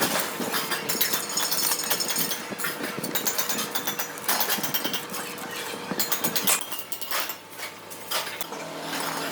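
Metalworking factory machinery in an LPG cylinder plant: a rapid, irregular clatter of metallic knocks and clicks over a steady machine hum.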